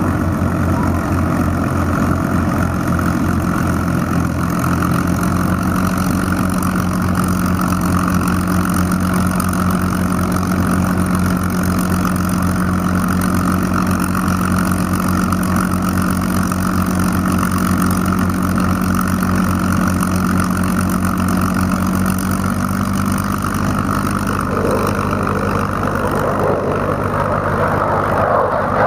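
P-51 Mustangs' Packard Merlin V-12 engines idling and taxiing with a steady, rhythmic throb. Near the end the sound gains more rasp as the nearer Mustang taxis close past.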